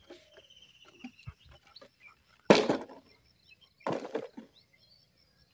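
A few small knocks and two louder short thuds, about two and a half and four seconds in, with a bird trilling faintly in the background.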